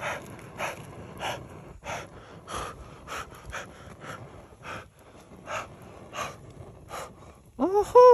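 A man panting sharp breaths in and out through his mouth, about one every half-second, while chewing steaming-hot mochi. Near the end he gives a short, loud, pitched vocal hum in three quick pulses.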